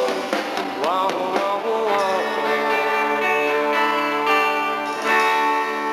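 Live country-rock band playing the song's closing bars with guitars, settling about two seconds in onto one long held final chord.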